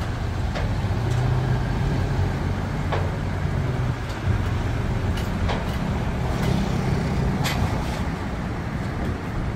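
Kia Carnival minivan's 2.2-litre diesel engine running as it drives slowly up the ramp onto a car-carrier truck, over a steady low engine hum, with a few sharp knocks from the ramp.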